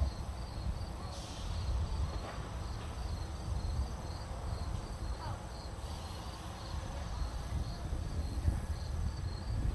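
A cricket chirping steadily in short, even chirps, about three a second. Wind rumbles low on the microphone.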